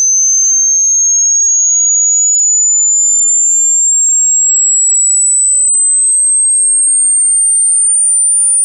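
Hearing-test sine tone: a single very high, pure tone sweeping slowly and steadily upward in pitch.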